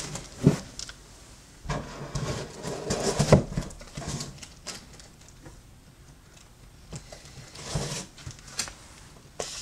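Comic books being handled while sorting through a box: rustling with a few soft knocks, the loudest about three seconds in.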